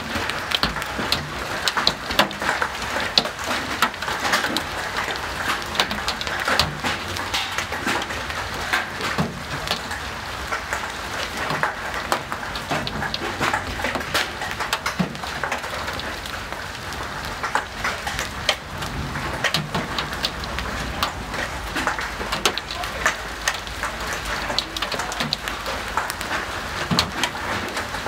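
Large hailstones pelting down in a heavy storm: a dense, irregular patter of sharp hits over a steady hiss of rain.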